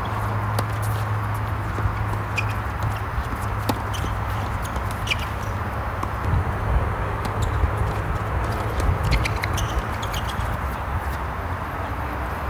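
Tennis balls struck by racquets and bouncing on a hard court during a doubles rally: scattered sharp pops and knocks. A steady low hum runs underneath.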